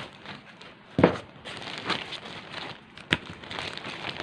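Packaging crinkling and rustling as a new laptop is handled out of its box, with a sharp knock about a second in and a shorter click about three seconds in.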